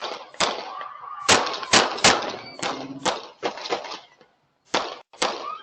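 A rapid, uneven string of about a dozen gunshots. The sharp cracks come in clusters, with a short gap about four seconds in.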